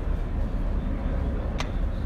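Low, uneven outdoor rumble, with one sharp click about a second and a half in.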